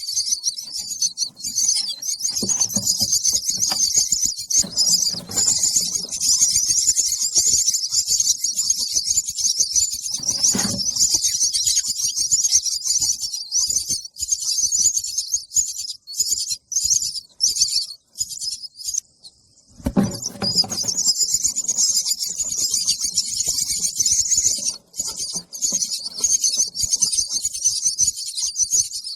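Baby bird chirping nonstop in a rapid, high-pitched begging call for food. The chirping stops for about a second roughly two-thirds of the way through, with a low thump at the break.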